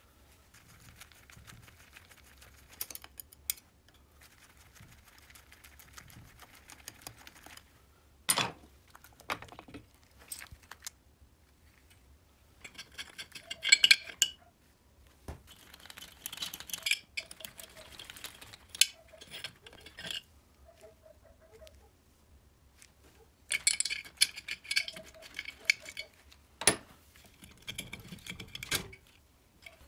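Metal parts of a small two-stroke moped engine being handled and fitted together by hand: scattered clinks, rattles and sharp knocks, with several louder bursts of metallic clatter as the cylinder and head are set onto the crankcase.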